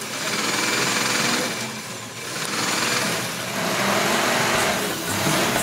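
Several electric sewing machines running at once, a rapid mechanical chatter of needles and motors that rises and falls in waves as the machines speed up and slow down.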